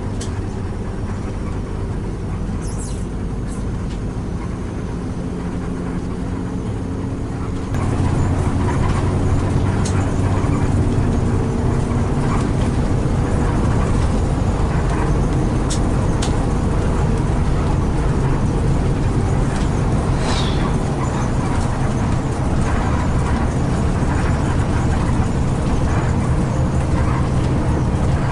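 Intercity coach running on the road, heard from inside the cabin: steady engine hum and road rumble. About eight seconds in, the sound jumps suddenly louder and fuller.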